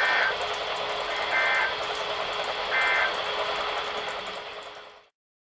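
NOAA Weather Radio End of Message data signal: three short bursts of EAS digital tones about 1.4 seconds apart over steady radio static, marking the end of the weekly test. The static fades out near the end.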